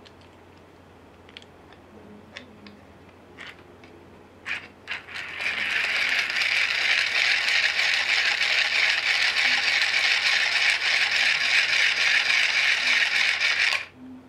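Hand-cranked 3D-printed plastic gear train spinning a small DC electric motor as a generator. A few light clicks as the parts are handled, then, about five seconds in, steady fast whirring of the gears under the crank for about eight seconds, stopping abruptly near the end.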